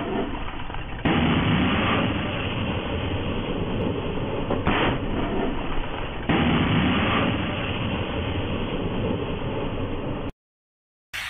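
NLAW shoulder-fired anti-tank missiles being launched: sudden bangs, each followed by a lingering rushing blast and rumble, about three times. The sound cuts off suddenly near the end, and a fresh loud blast starts just before the close.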